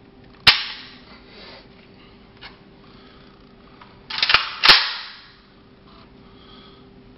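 AK-47 rifle handled during a quick carry-and-raise: a sharp clack with a brief rustle, then about four seconds in a rush of rustling and two more sharp clacks a third of a second apart as the rifle is swung up.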